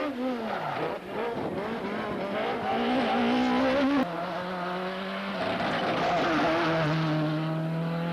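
Rally car engine at full effort on a stage, revs dropping and climbing again through gear changes. About halfway through the sound changes abruptly to a steadier, held engine note.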